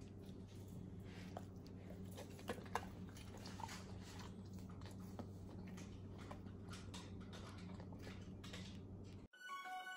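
German Shepherd's soft mouth sounds: faint scattered clicks of licking and smacking its lips, over a steady low hum. Music cuts in near the end.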